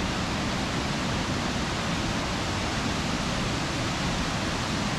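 Steady rushing of the big waterfall at Burgess Falls, the main plunge of the Falling Water River.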